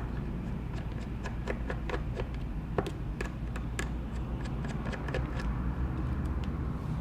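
Small, irregular clicks and ticks of a Phillips screwdriver working the tiny screws out of an iPod touch and setting them down, over a steady low hum.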